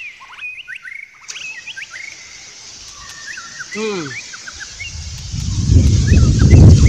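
Birds chirping with many short rising and falling notes. About five seconds in, wind buffets the microphone with a loud low rumble that drowns them out.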